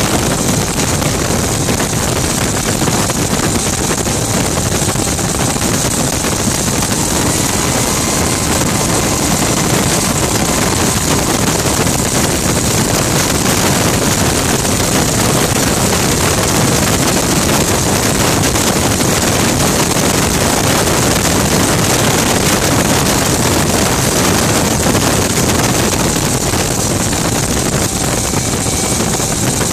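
Gas turbine engine of a Rover Jet 1 recreation running under way, heard from the open cockpit as a steady rush with a strong high hiss, mixed with wind on the microphone.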